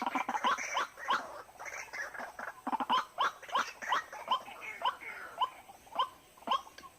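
White-breasted waterhens calling: a rapid run of short, hoarse notes, about two or three a second, crowded and overlapping in the first few seconds, then more evenly spaced.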